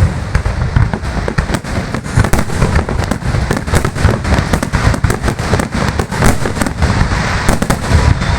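Fireworks display: a dense, unbroken barrage of shell bursts and crackling bangs, several per second, over a deep rumble.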